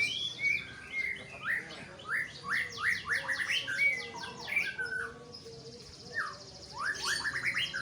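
White-rumped shama singing: a varied run of whistled notes and fast repeated rising notes. About five seconds in it pauses while a high thin trill carries on, then a quick series of rising notes comes near the end.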